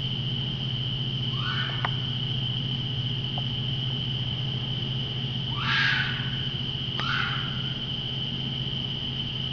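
Night insects droning steadily at one high pitch over a low hum, broken by three short, harsh animal calls that sweep upward, the loudest about six seconds in, plus two sharp clicks.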